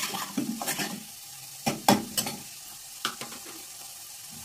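A steel ladle scraping and knocking against a kadai as a spice masala is stirred in hot oil, over a faint sizzle. The knocks come irregularly and stop about three seconds in.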